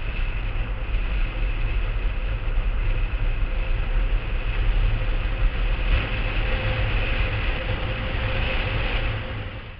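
Wind buffeting the microphone and the rumble of a blokart's wheels rolling fast over dry-lake hardpan: a steady, heavy noise with a faint steady whine on top. It fades away at the very end.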